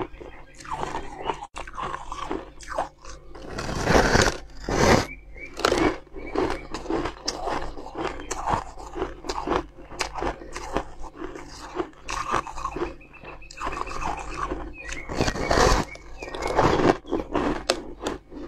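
A block of frosty ice being bitten and chewed: repeated crisp crunches and crackles, with the loudest bites about four to six seconds in and again around sixteen seconds.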